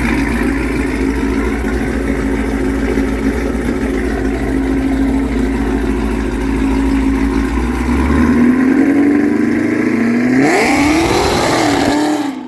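Heavily modified, roughly 1000 hp Cadillac CTS-V V8 idling steadily, then revved once about ten seconds in, the pitch climbing sharply and dropping back before the sound cuts off.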